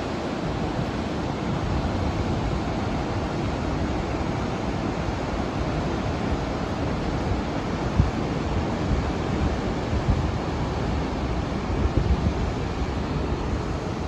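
Steady rushing roar of the Moyar waterfall in flood. Wind buffets the microphone in low gusts, most of all about eight seconds in and again near the end.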